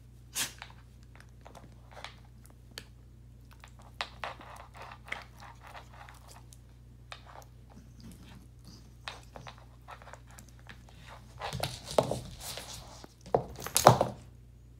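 A Belgian Malinois chewing and biting a red rubber ring toy: irregular crunching clicks, a few at a time. Near the end come louder scuffling and thumps on the wooden floor as the dog rolls over and gets up.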